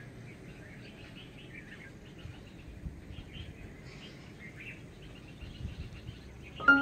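Small birds chirping now and then against a steady outdoor background hiss. Near the end, glockenspiel-like mallet music comes in with a sudden note.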